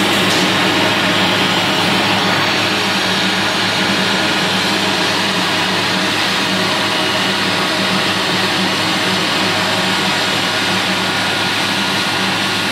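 Boeing 777-200's twin turbofan engines running at taxi power close by: a steady rushing jet noise with a low hum under it.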